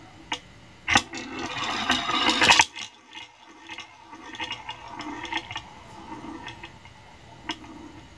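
Steel ball rolling and rattling on the wooden track of a kinetic marble-run sculpture. A sharp click about a second in, then a loud rolling rattle that builds and stops abruptly under two seconds later, followed by quieter rolling with scattered clicks.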